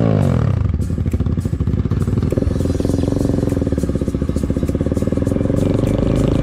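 Single-cylinder KTM RC200 engine pulling away from a stop at low revs, with an evenly pulsing beat; about two and a half seconds in its note steps up and holds steady.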